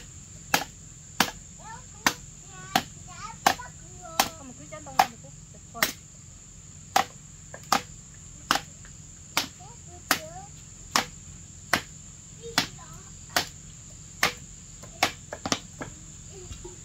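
Wooden club striking the top of a wooden post to drive it into the ground: a steady series of sharp knocks, a little more than one a second. A steady high drone of insects runs underneath.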